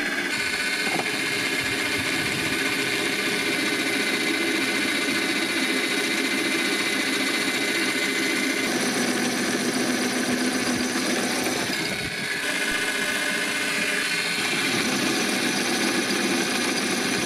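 Parkside PTBMOD 710 B2 bench drill press running at about 500 rpm, boring a 12 mm bit into 12 mm steel without a pilot hole: a steady motor and cutting noise, with a brief dip about twelve seconds in. The motor is heavily loaded and slows noticeably.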